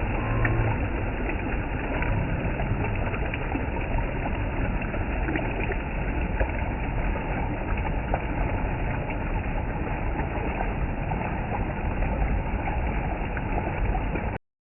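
Water gushing down in a steady, unbroken rush that cuts off suddenly near the end.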